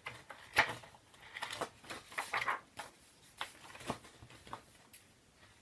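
Pages of a picture book being turned and handled: paper rustling with a few soft taps, the sharpest about half a second in.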